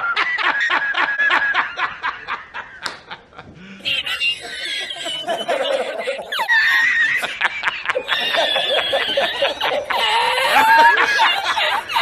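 A man laughing hard in rapid, even "ha-ha-ha" bursts, then after a short break about four seconds in, a second man's high laugh that slides up and down in pitch.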